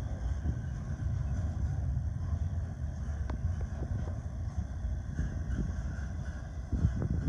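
Double-stack intermodal freight train rolling past: a steady low rumble of the well cars' wheels on the rails, with a few sharp clicks and knocks.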